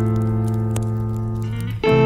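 Background music: a held chord slowly fading, with a new chord struck near the end.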